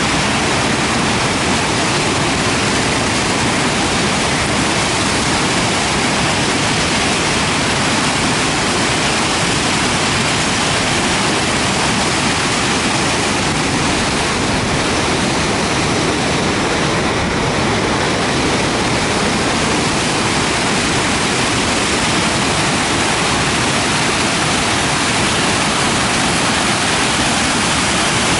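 Grand Falls on the Little Colorado River: muddy water cascading over broad sandstone ledges, giving a loud, steady rush of falling water.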